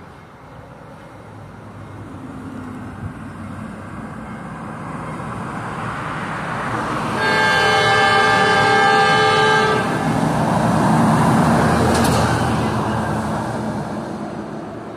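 Diesel locomotive of an autorack freight train approaching, its engine and wheel rumble growing steadily louder. About seven seconds in it sounds one long multi-chime horn blast of about two and a half seconds, a warning for the grade crossing ahead.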